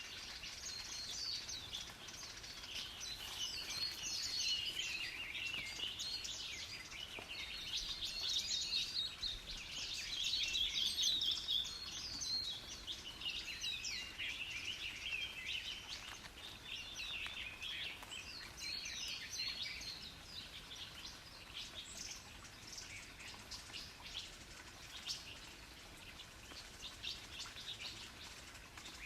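Chorus of small birds chirping and twittering in quick, overlapping calls, busiest for the first two-thirds and thinning out toward the end.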